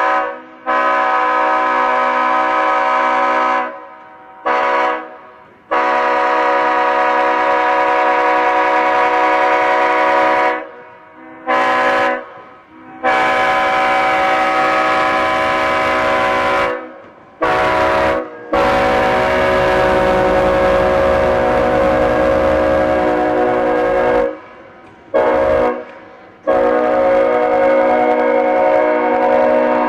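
Leslie S5T five-chime locomotive air horn blowing a loud multi-note chord in a series of long blasts, most of them followed by a short toot.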